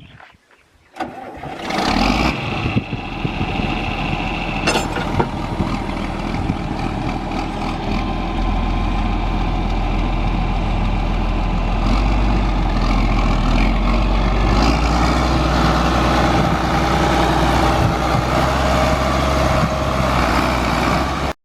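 Tractor engine that cuts in suddenly about two seconds in and then runs steadily, growing louder a few seconds later as it is throttled up.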